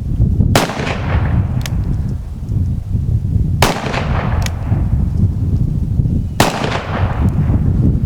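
Three shots from a .36 caliber black powder revolver, about three seconds apart, each with a long fading echo, and a faint click about a second after each shot. A steady low rumble runs underneath.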